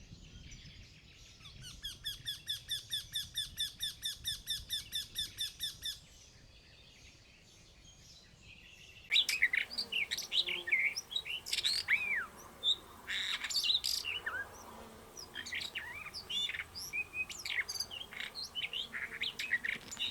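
Birdsong: first a single rapid, even trill of repeated notes, about five a second, lasting about four seconds. After a short lull, a busy mix of several birds' chirps and quick whistled notes starts abruptly and carries on.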